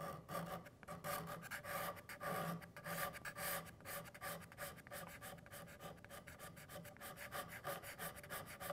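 Steel card scraper held nearly flat and paring the end grain of a hardwood block: a quick run of short, faint scraping strokes, back and forth across the end.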